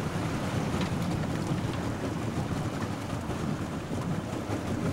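Steady low rumble of a vehicle's engine running, with no clear change in pitch.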